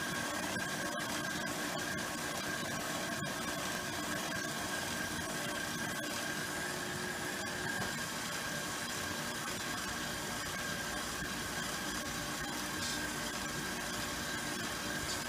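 KitchenAid stand mixer motor running steadily with a faint steady whine, driving the fruit and vegetable strainer attachment as it presses cooked apples into applesauce.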